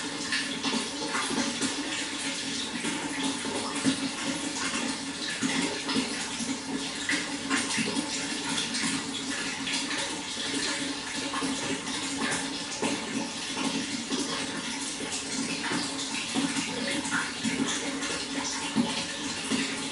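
Running water splashing and trickling steadily, with small irregular splashes throughout.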